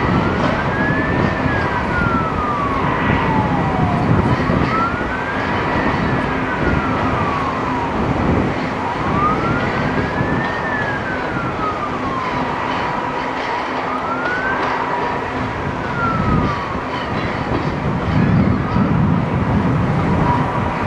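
An emergency vehicle siren wails slowly up and down four times, falling silent about three-quarters of the way through, over the steady rumble of freight cars rolling by. The train's rumble grows a little louder near the end.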